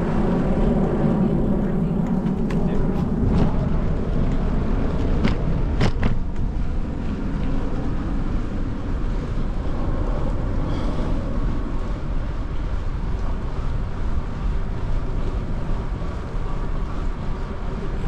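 Bicycle ride: wind rushing over the microphone and tyres rumbling on the trail, with a few sharp clicks and knocks between about two and six seconds in.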